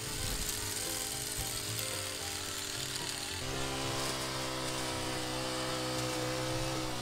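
Background music with held chords that change about halfway through, over the steady running of a motorised pole hedge trimmer.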